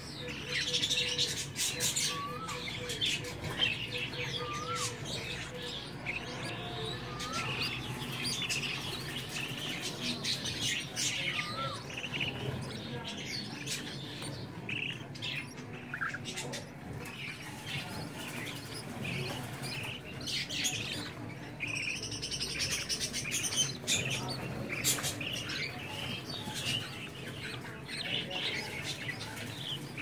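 Budgerigar chicks chirping in a quick, high, continuous chatter, with a few short rising whistles in the first dozen seconds.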